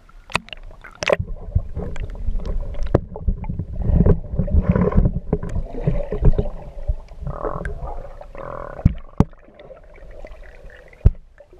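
Muffled underwater water sounds heard through a GoPro's waterproof housing: gurgling and sloshing over a low rumble, broken by many sharp clicks and knocks.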